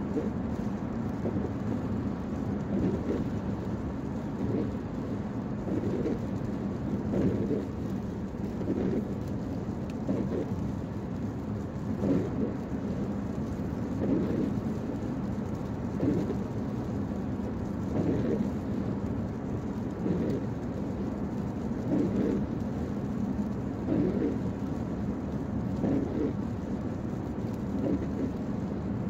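Steady road and tyre noise heard inside a car's cabin on a wet highway, with the windshield wipers swishing across the glass about every two seconds.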